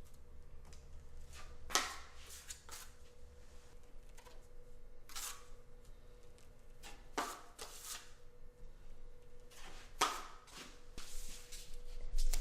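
Drywall knife spreading joint compound along both edges of a wall corner: a run of short, irregularly spaced scraping strokes over a faint steady hum.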